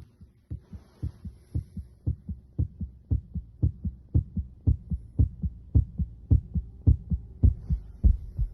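Heart sounds auscultated with a stethoscope over the aortic focus (second intercostal space, right parasternal line): a steady lub-dub, the paired beats coming about twice a second.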